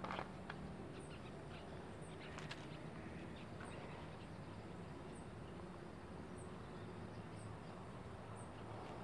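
Quiet outdoor ambience: a steady background hiss with a faint high chirp repeating about once a second, likely an insect, and a few brief soft clicks, the clearest about two and a half seconds in.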